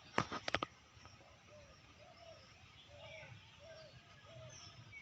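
Birds calling, with a series of short, low, arched notes repeating about twice a second and fainter high chirps behind them. A few sharp clicks come in quick succession right at the start.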